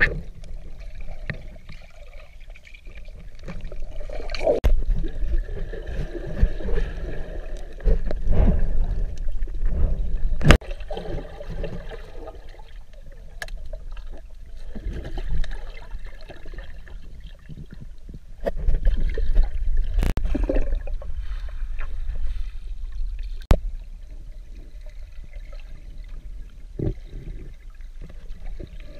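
Muffled underwater water noise from a camera held below a pond's surface: a low gurgling rumble that swells and fades, with a few sharp clicks or knocks.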